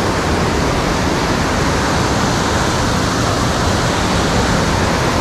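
Whitewater rapids of a mountain river rushing close by: a loud, steady, unbroken rush of water.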